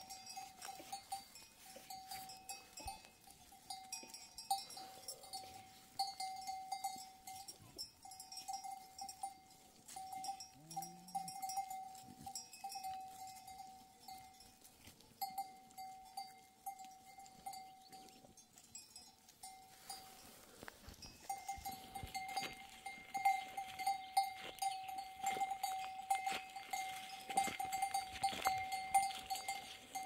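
Bells worn by a grazing herd of goats and sheep clanking and ringing irregularly as the animals move and feed. The ringing stops briefly about two-thirds of the way through, then comes back louder and busier.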